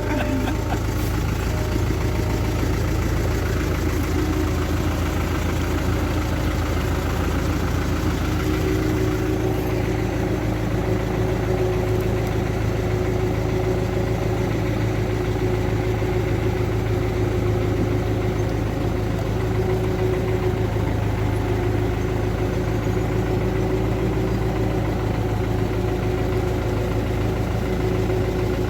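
A motor vehicle's engine idling steadily, with a low drone that shifts slightly about nine seconds in.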